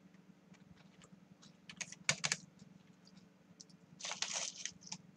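Typing on a computer keyboard: scattered key clicks, with a quick run of keystrokes about two seconds in and a brief rustle about four seconds in.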